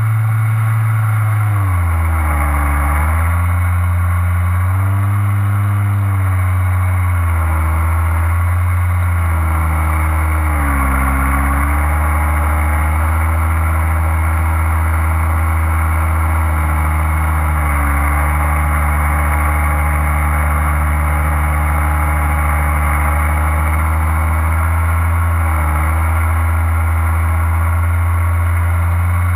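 Motor and propeller of a small low-flying aircraft carrying the camera, running steadily with its pitch dipping and recovering a few times.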